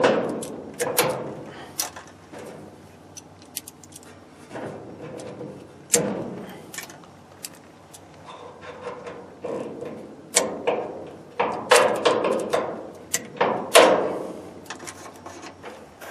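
Irregular metallic clanks, knocks and clicks with brief ringing, from hands and tools working a Jeep J20's hood latch and release cable. The heaviest knocks come at the start and about 6, 10, 12 and 14 seconds in.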